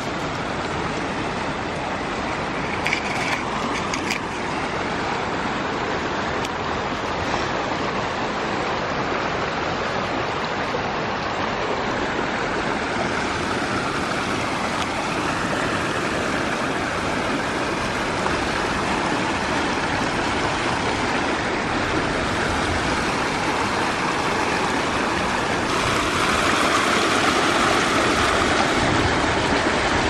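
Fast-flowing creek rushing over rocks, a steady roar of water that grows a little louder near the end, with a few brief knocks about three to four seconds in.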